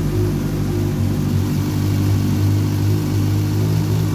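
Suzuki GSX-S1000's inline-four engine idling steadily just after starting, with its throttle position sensor newly adjusted to cure stalling.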